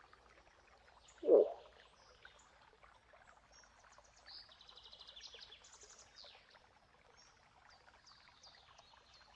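A moose gives one short, loud call that falls in pitch, about a second in, with small birds chirping and twittering faintly in the background.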